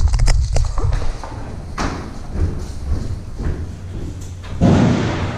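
Running footsteps with gear rattling, then hollow thuds of boots and gear on a steel shipping container as it is entered. The loudest, echoing thud comes about four and a half seconds in.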